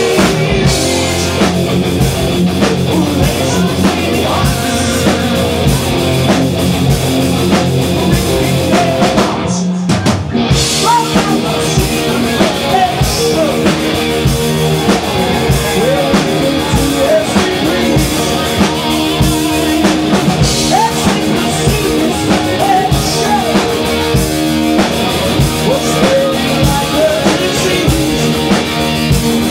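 A metal band playing live and loud: drum kit and electric guitars, with a very brief break in the music about ten seconds in.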